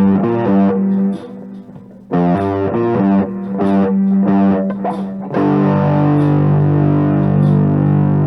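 Overdriven electric guitar (Epiphone Les Paul Standard) playing a riff of picked notes, then a chord held and ringing out from about five seconds in, over a backing drum track.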